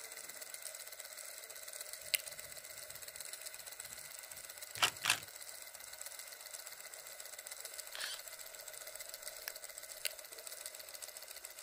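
A steady faint hiss with a few sharp mechanical clicks: one about two seconds in, a quick pair about five seconds in, and single clicks near eight and ten seconds.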